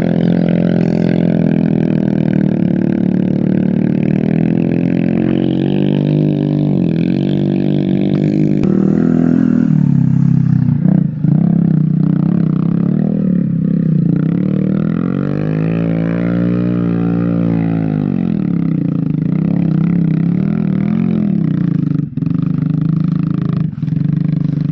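Motorcycle engine running continuously, its pitch wavering up and down. About two thirds of the way through it revs up and eases off again.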